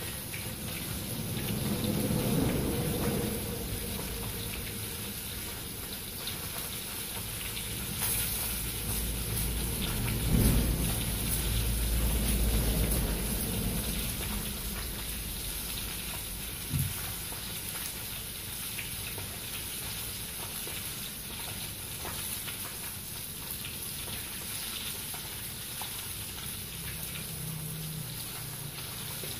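Batter-coated cá mùi fish deep-frying in hot oil: a steady crackling sizzle. Louder low rumbles swell a few seconds in and again around the middle, and there is a single knock just past the middle.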